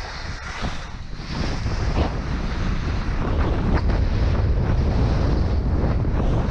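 Storm wind buffeting a GoPro Hero 5 Black's microphone: a heavy, steady low rumble with a few short crackles.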